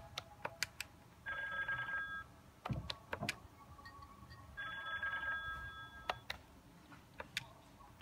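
Cisco CP-8945 IP desk phone playing a ringtone preview through its speaker: two short trilling rings about three seconds apart, the second longer than the first. Sharp clicks and a dull knock fall between the rings.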